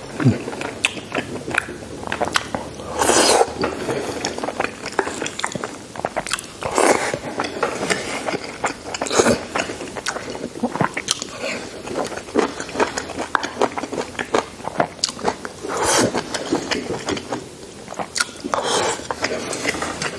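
Close-miked chewing and lip-smacking of a man eating braised pork knuckle with rice: a steady run of short mouth clicks, with louder bursts every few seconds.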